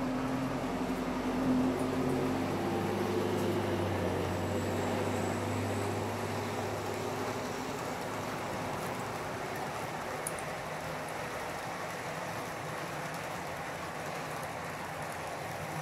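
Model railway locomotives running along the track: a steady rolling noise with a motor hum that fades out after about seven seconds.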